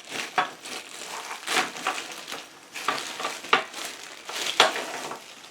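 Irregular clinks, scrapes and rattles of the caster wheels and their metal mounting parts being handled and fitted onto an oil-filled radiator space heater.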